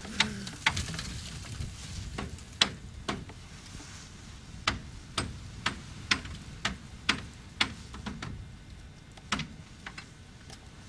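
Ice breaking off an ice-covered antenna mast, heard as about fifteen irregular sharp clicks and knocks over a faint steady hiss.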